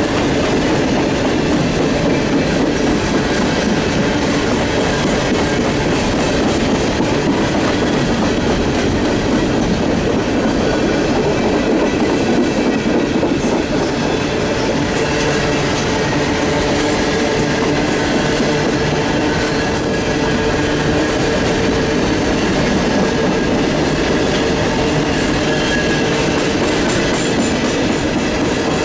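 Norfolk Southern freight train 591 rolling past on the rails: a steady, loud rumble of wheels and cars, with thin steady high tones from the wheels on the rail.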